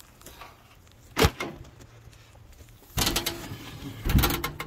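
A sharp wooden knock about a second in, then a loud scraping, rattling stretch near the end as a chicken-coop roof panel is slid along the top into place.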